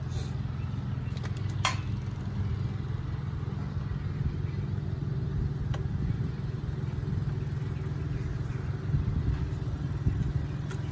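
A steady low rumble, with a few sharp light metallic clicks from hand tools and bolts on the throttle body as it is bolted to the intake manifold. The clearest click comes about two seconds in.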